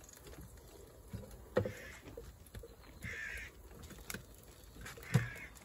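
Crows cawing, two harsh caws about three and five seconds in, mixed with sharp clacks of kitchen tongs setting mushrooms into an air-fryer basket; the loudest clack comes near the end.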